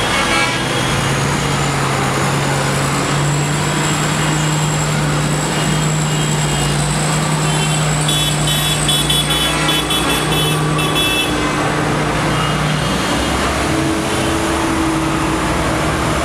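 Street traffic running with a steady low engine hum. A quick run of high ticks comes about eight seconds in and lasts some three seconds.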